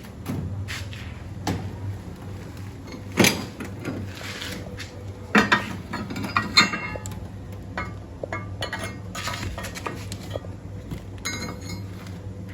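Metal clinks and knocks of steel pieces and hand tools being handled, with several sharp strikes, over a steady low hum.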